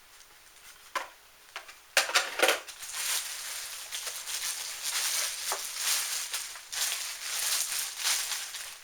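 Plastic packaging crinkling and rustling, with sharp clicks, as kit parts are handled; it starts about two seconds in and carries on unevenly.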